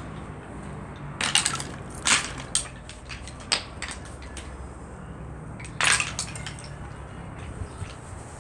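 Dry cow horns clattering and crunching against one another in a handful of short bursts, over a low steady hum.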